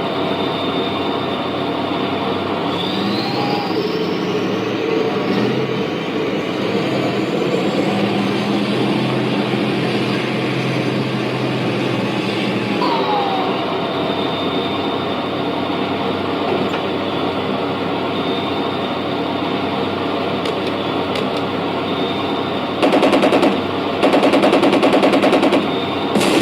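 RC tank sound unit on a TK60 control board playing a tank engine-running effect, steady with a couple of pitch changes. Near the end come two louder bursts of rapid machine-gun fire.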